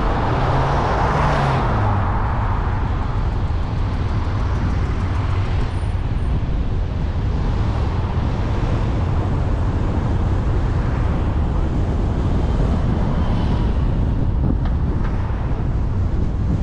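A car driving slowly on town streets, heard from the car itself: a steady low engine hum with tyre and road noise, a little louder in the first couple of seconds.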